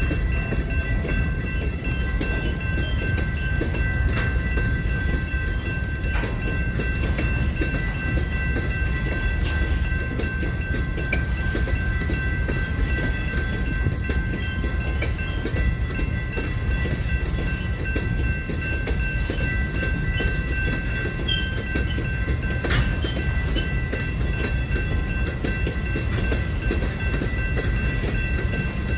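A train rolling past: a steady low rumble of railcars on the track, with a few steady high-pitched ringing tones over it.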